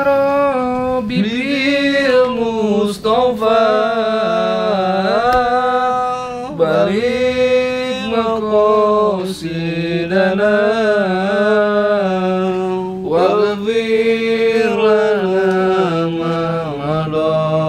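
A single voice chanting a slow, ornamented melody in long held notes that waver and slide, with short breaks between phrases about six and thirteen seconds in.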